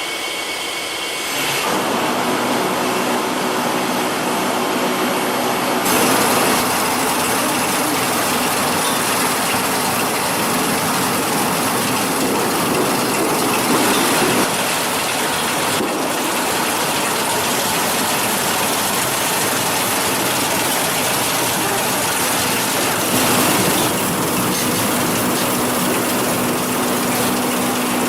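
Food-processing machinery in a juice factory running steadily, a continuous mechanical whirring noise. It changes character abruptly a few times, and a steady hum joins in near the end.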